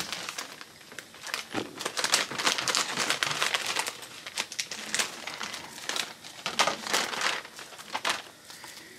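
Clear plastic packaging bag crinkling and rustling in irregular bursts as it is pulled open by hand.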